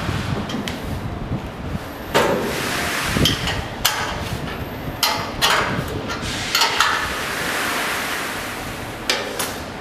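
Irregular metal clicks and knocks as a wrench turns and taps the bolts of a Wittur HydraLD lift landing door's header brackets, with the steel frame knocking against its fixings. A steady hiss sits underneath.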